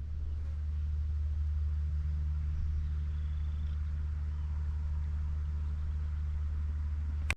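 A steady low engine hum, like a vehicle idling, that cuts off abruptly near the end.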